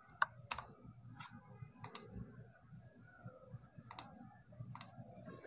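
Faint, irregular clicks, about a dozen spread unevenly across a few seconds, as controls are worked to fill in a form.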